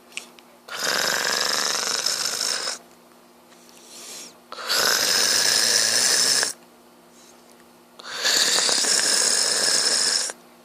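A sleeping man snoring: three long, loud snores of about two seconds each, coming roughly every three and a half seconds.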